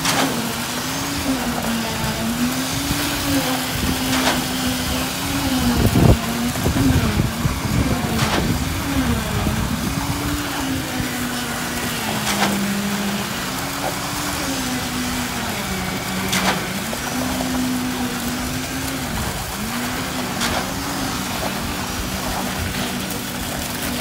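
Concrete pump's engine running under load, its pitch dipping and recovering every second or two as the pump strokes concrete up the boom hose. A sharp knock comes about every four seconds, with a louder rumbling surge a few seconds in.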